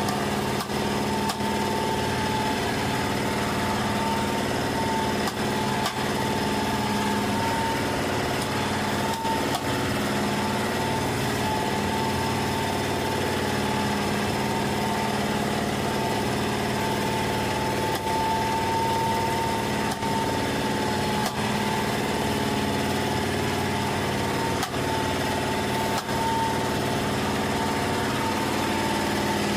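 A boat's engine running steadily at an even pitch, with a few scattered knocks of a knife on a wooden cutting board.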